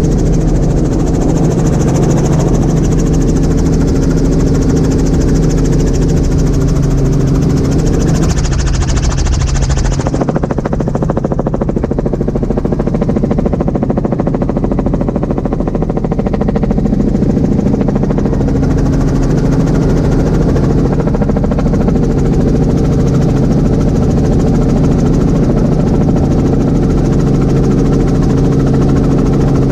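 Robinson R44 helicopter heard from inside the cabin in flight: its six-cylinder piston engine and rotors drone steadily with several fixed tones. A high rushing hiss fades out about a third of the way in.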